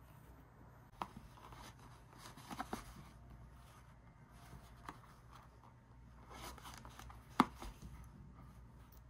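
Hand embroidery: a needle pushed through fabric stretched taut in an embroidery hoop and thread drawn through, giving faint scattered ticks and soft rustles, with one sharper click about seven seconds in.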